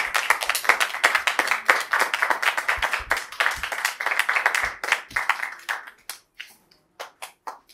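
Audience applauding. The clapping thins to a few last scattered claps after about six seconds.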